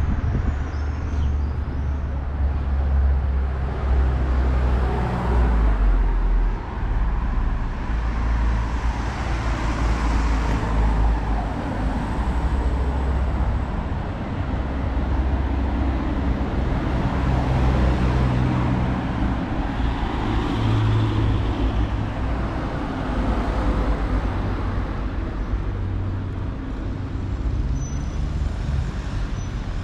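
Road traffic: cars driving past on the street, a continuous low rumble that swells and eases as vehicles come and go.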